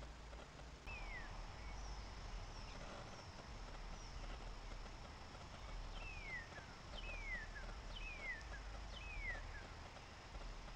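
A bird calling with short, clear whistles that slide downward in pitch: one about a second in, then a run of four about a second apart in the second half.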